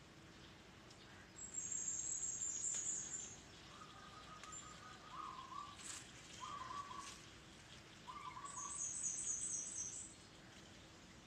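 Small birds calling in the tree canopy: two bouts of a very high, rapid twittering trill, with three short, lower trilled phrases between them.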